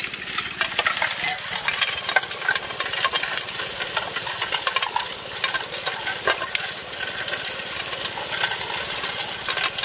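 Gold Fox trommel running: gravel and rocks clattering in many small clicks inside the turning barrel over a steady hiss of spray water washing the material.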